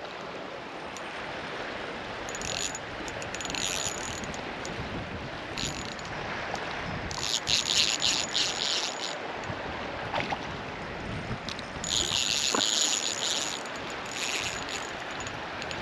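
Steady rush of stream water, with several short, high whirring runs of a fishing reel while a hooked rainbow trout is played; the longest run lasts about two seconds.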